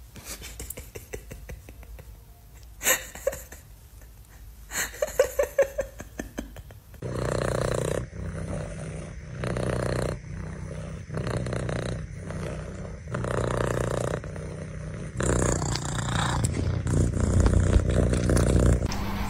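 A cat purring loudly right at the microphone, the purr swelling and fading with each breath about once a second, taking over about seven seconds in. Before it there are only a few faint clicks and short high calls.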